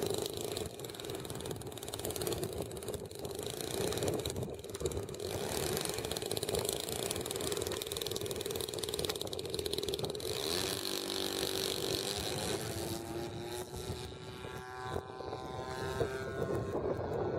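Radio-controlled model aerobatic plane's motor and propeller running at a steady pitch while it is on the ground, then rising in pitch about ten seconds in as it throttles up for takeoff and climbs away.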